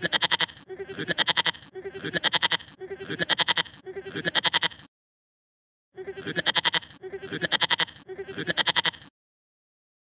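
Goat bleating again and again: eight quavering bleats of about a second each, five in a row, a pause of about a second, then three more.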